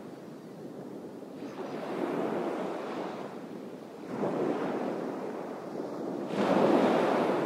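Sea surf: waves washing in, swelling three times about two and a half seconds apart.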